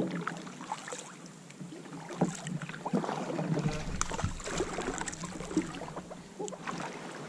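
Small plastic kayak on the water: water lapping and splashing around the hull, with irregular knocks and clatters as the paddle and gear are handled against it.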